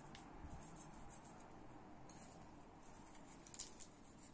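Faint, soft pattering and rustling of nigella seeds sprinkled from the fingertips onto dough buns on baking paper, with one slightly louder tick about three and a half seconds in.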